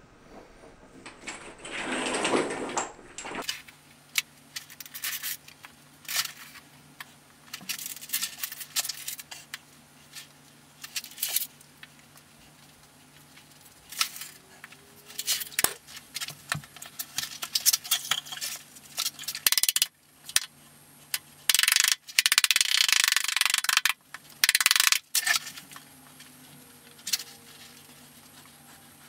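Small mosaic tiles clicking and clinking against one another as tile sheets and loose pieces are handled and pressed into thinset, with a few seconds of louder scraping near the start and again about three-quarters of the way in. A faint low hum runs underneath.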